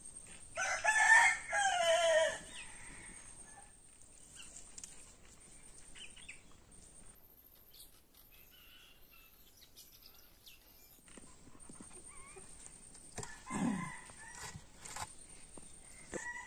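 A rooster crows once near the start, a single call of about two seconds and the loudest sound here. Faint knocks and rustles follow, with a short, quieter sound about thirteen seconds in.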